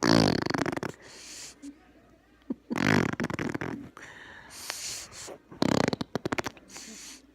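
A young child blowing raspberries against an arm, making fart noises: three main fluttering buzzes, each about a second long, with a few shorter, fainter ones between them.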